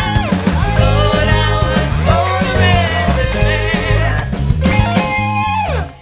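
Live rock band playing: two women singing lead and backing vocals over electric guitar, bass guitar and drums. The song stops abruptly near the end.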